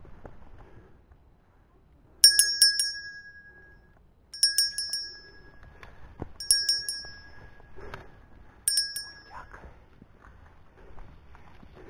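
A small bell-like ringing: four rings about two seconds apart, each a quick run of three or four strikes that leaves a ringing tone for about a second.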